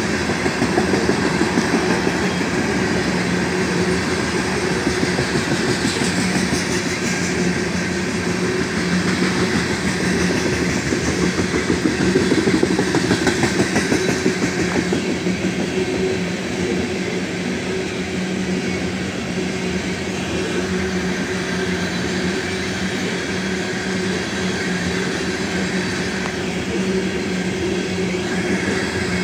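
Loaded coal train's cars rolling past at speed: steel wheels on the rails give a continuous rumble with rapid clickety-clack and a steady low hum, as car after car goes by.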